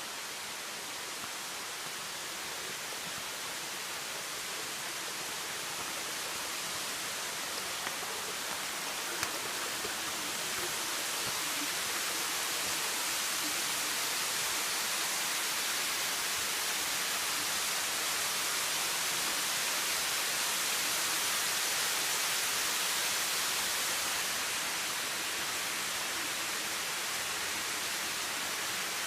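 Waterfall's falling water making a steady rushing noise, growing somewhat louder about ten seconds in and easing back near the end.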